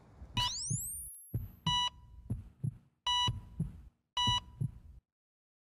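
Logo sting of sound effects: a rising swoosh, then heartbeat thumps in pairs with three electronic heart-monitor beeps about a second apart. It cuts off suddenly about five seconds in.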